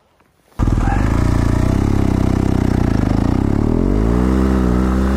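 BMW GS Adventure's boxer-twin engine comes in suddenly and loudly about half a second in and runs on, then revs up with a rising pitch about four seconds in.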